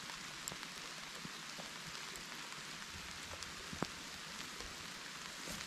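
Light rain pattering, a steady hiss scattered with small drop ticks and one sharper tap nearly four seconds in.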